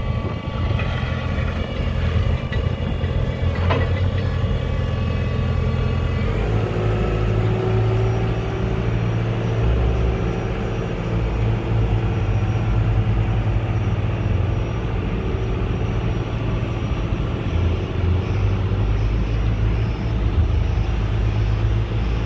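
2012 JCB 535-125 telehandler's diesel engine running steadily under hydraulic load, with a high whine from the hydraulics as the telescopic boom is raised and extended. The whine changes pitch about six seconds in, and there is one short click about four seconds in.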